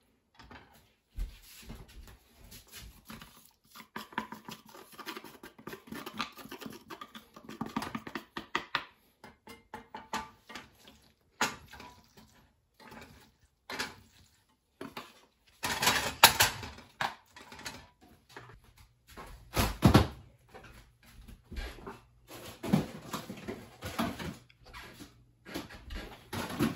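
Cooked macaroni being tipped and picked by hand out of a plastic colander into a metal saucepan, with irregular clicks, taps and clatter. Louder knocks and clatter come about 16 and 20 seconds in.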